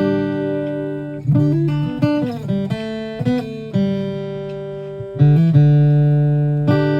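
Martin acoustic guitar being played: a run of struck chords and short picked note phrases, each ringing out and slowly fading before the next.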